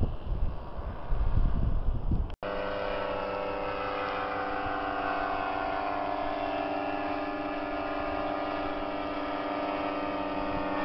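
Wind buffeting the microphone, then after a sudden break about two seconds in, a powered paraglider quad's engine running at a steady, unchanging speed with an even drone.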